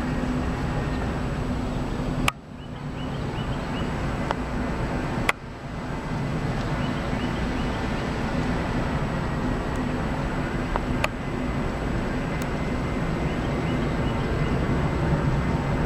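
Steady jet-engine noise from the Boeing 747 Shuttle Carrier Aircraft ferrying the shuttle Discovery past at low altitude. Two sharp clicks come about two and five seconds in, each followed by a brief dip in level.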